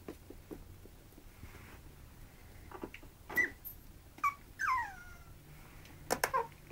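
Puppies whimpering and yipping: a few short high cries in the middle, one of them a whine that falls in pitch, with a cluster of sharper yelps and clicks near the end.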